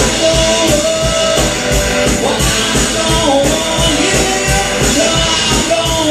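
Live rock band playing loud, with drums keeping a steady beat under a sustained, bending lead line from a guitar or voice.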